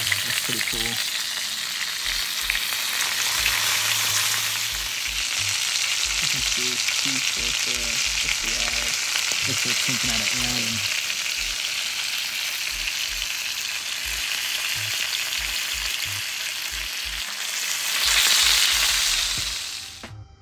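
Fish frying: a steady, loud sizzle that swells briefly near the end, then cuts off suddenly.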